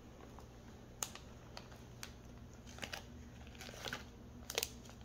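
Scissors snipping into a plastic blind-bag pack, with the packaging crinkling as it is handled: irregular sharp snips and crackles that come thicker toward the end.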